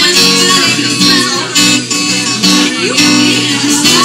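Live band playing a country-folk song, with strummed acoustic guitar to the fore over bass and drums.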